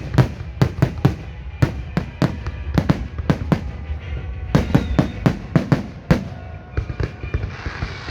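Fireworks display: a rapid, irregular string of sharp shell bursts, often several bangs a second, over a low rumble, with music faintly underneath.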